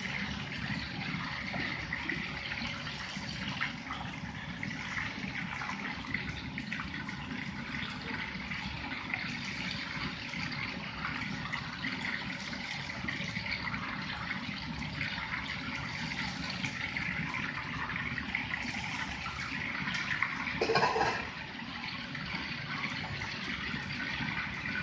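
Steady hiss and rush of a commercial wok station: spare ribs deep-frying in a wok of oil over a gas burner, with a tap running water into a pot at the back of the range. A brief louder sound stands out about 21 seconds in.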